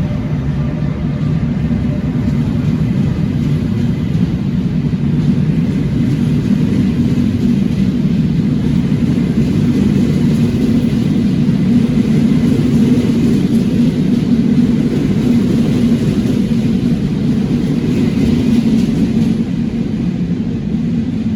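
Train in motion, a loud steady low rumble, with a faint whine that fades out in the first couple of seconds.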